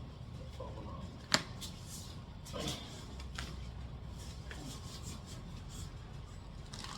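Hand tools being handled and set down, with one sharp click about a second in and a softer knock a little later, over a steady low hum.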